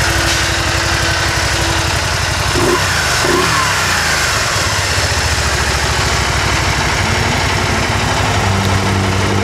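The 998cc Rotax liquid-cooled V-twin of a 2014 Can-Am Spyder STS idling steadily.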